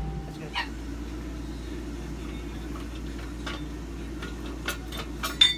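Scattered metallic clicks and taps of hand tools on engine fittings, ending in a sharp, ringing metal clink near the end, over a steady low hum.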